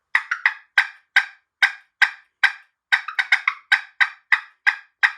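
Push-pull turkey call cutting: a run of sharp, short pops, uneven and quicker in a cluster about three seconds in. They are made by light thumb pressure on the push-pull call to get the popping sound of a turkey's cut.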